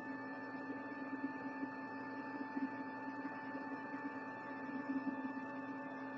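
Steady electrical hum, with several faint steady whine tones above it.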